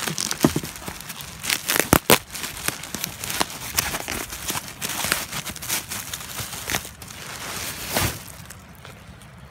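Plastic packaging being handled and pulled open: a grey plastic mailer and a clear plastic wrapper crinkling and crackling in quick, irregular bursts that die down near the end.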